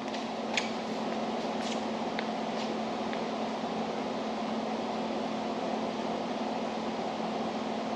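Steady hum of room ventilation, with an even drone and a low tone. A few faint ticks sound in the first three seconds.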